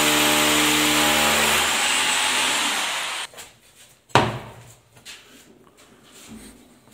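A motor-driven machine running steadily with a hum and a hiss; the hum stops under two seconds in, and the hiss fades and cuts off about three seconds in. A single sharp knock follows about a second later, then faint handling sounds.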